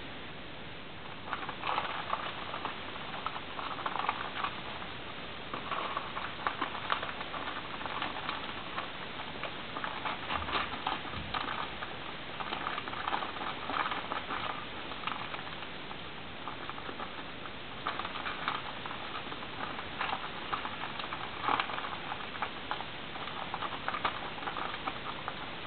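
A small furry pet working at fabric with its mouth: a fast, irregular crackle of small clicks and rustles that comes in denser bursts every few seconds.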